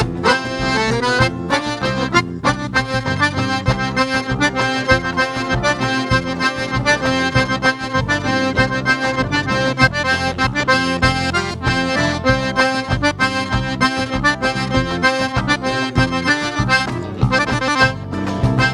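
Accordion-led band playing an instrumental passage of a vaneira with a steady dance beat.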